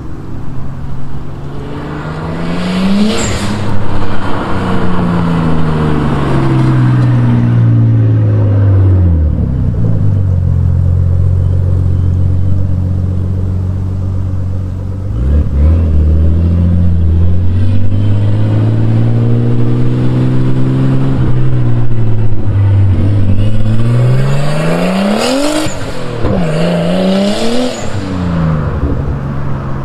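Nissan Skyline R33 GTS-t's turbocharged RB25DET straight-six, breathing through a custom turbo-back exhaust with an HKS muffler, accelerating hard past twice, about three seconds in and again near the end, its note rising and then falling away. Between the two passes it drives on at a steadier, lower pitch.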